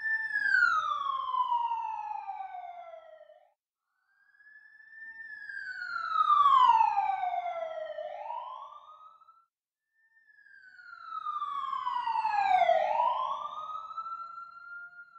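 Emergency vehicle siren, heard three times with short silences between: each wail sweeps down in pitch and turns back up at the end, swelling in loudness and fading away.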